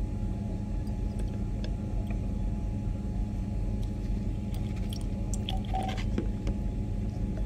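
Steady low hum of lab room ventilation, with a faint constant tone above it. A cluster of light glassy clicks and handling noise comes about five to six seconds in as the glass Erlenmeyer flask is swirled by hand.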